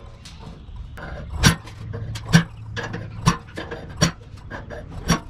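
A ferrocerium rod is scraped hard against the ember notch on an 80CrV2 high-carbon steel camp knife. There are about five sharp scraping strikes roughly a second apart, with lighter scrapes between them, and the sparks are not yet lighting the tinder.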